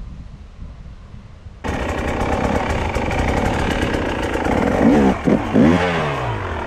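Husqvarna enduro motorcycle engine, coming in suddenly after a quieter first second and a half as the bike rides a rough forest trail. It revs up and down several times near the end.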